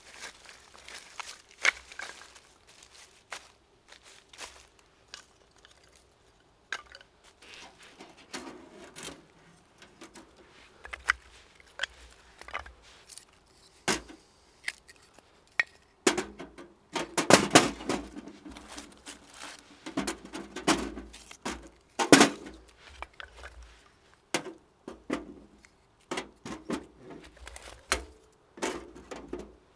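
Sticks and kindling handled and broken in dry leaf litter, then wood pushed into a small metal Pomoly wood stove: scattered snaps, knocks and light metallic clinks with rustling between them, busiest a little past halfway.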